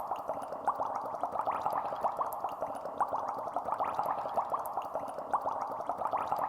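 Continuous bubbling, like water gurgling with many small rising bubble pops, steady in level.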